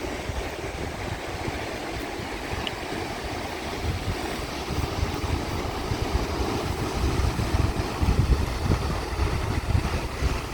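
Wind gusting on the microphone over a steady rushing noise, the gusts heavier in the second half.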